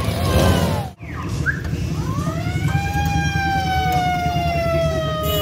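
A siren wailing, its pitch rising once and then sliding slowly down, over a steady low rumble. The sound cuts out sharply for an instant about a second in.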